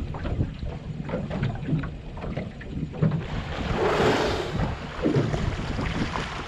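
Wind buffeting the microphone over a steady low rumble, with a louder rushing whoosh about three to five seconds in.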